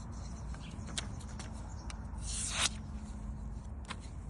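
A knife being tested for sharpness: light clicks of handling, with one short rasping slice about two seconds in as the blade cuts. The blade is most likely the 440-steel fixed-blade utility knife.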